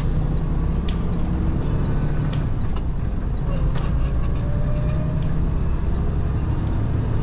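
Semi-truck under way on the highway: a steady low drone of its diesel engine mixed with road noise, with a few faint clicks.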